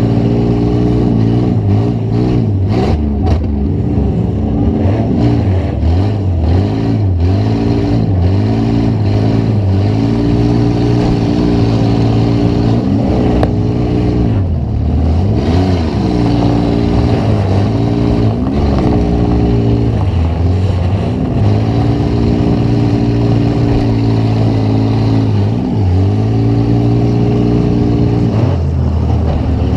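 Demolition derby car's engine heard from onboard, revving up and down again and again as the throttle is worked. A few sharp knocks come through over it.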